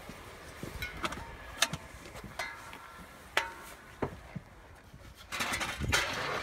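Boards being handled in a car's cargo area: scattered knocks and taps of wooden decks and hardware against each other, with a longer rustle about five seconds in.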